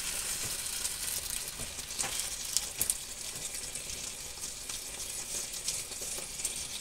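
Pancake batter sizzling and crackling as it is ladled into a hot nonstick frying pan, with a few light clicks of the ladle against the pan about two to three seconds in.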